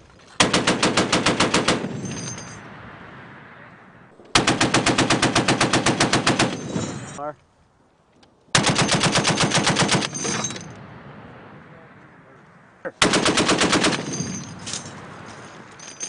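Belt-fed machine gun firing four bursts of automatic fire, each one to three seconds long with a few seconds between them, the second the longest. Each burst is followed by a trailing echo.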